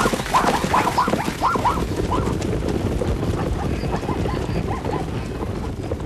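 A quick run of short, nasal animal calls, about three a second, loudest in the first two seconds and growing fainter after, over a steady rustling background.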